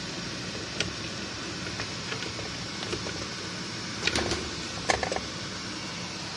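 Steady hiss of a lit gas stove burner under a pot of cabbage leaves in water. A wooden spoon knocks and clicks lightly against the pot and leaves a few times, most clearly about four and five seconds in.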